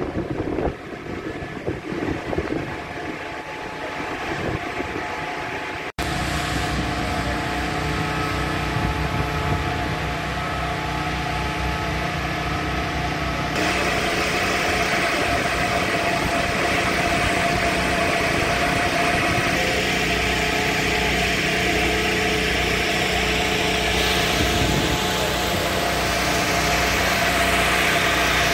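Gusts of wind on the microphone for the first several seconds, then the steady hum of a fire engine idling close by, a constant low drone with a few held tones over it.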